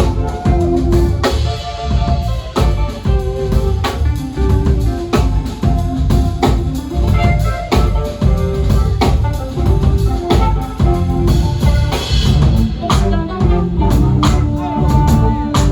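Live jazz band playing, with a drum kit driving a busy groove of regular sharp hits under short pitched melodic lines.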